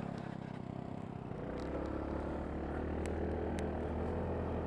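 Single-cylinder Piaggio scooter engine running; about a second and a half in its note changes and it grows slowly louder as the scooter moves off.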